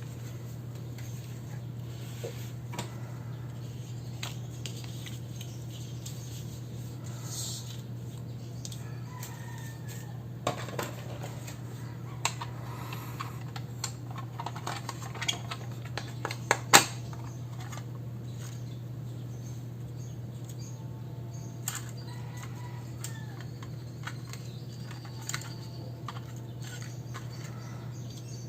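Stationery being handled at a desk while journaling: scattered small clicks and taps, busiest in the middle, with one sharp click about two-thirds of the way through, over a steady low hum.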